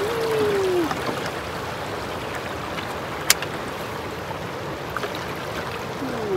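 Fast-flowing creek water rushing and swirling around a canoe's bow, a steady hiss. A short falling tone sounds at the very start, and a single sharp click a little after three seconds in.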